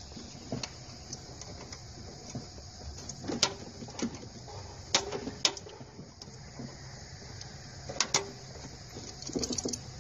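Irregular sharp metallic clicks and taps as a hand valve spring compressor is fitted and adjusted over a valve spring on a Nissan VG33E V6 cylinder head, with a quick run of clicks near the end.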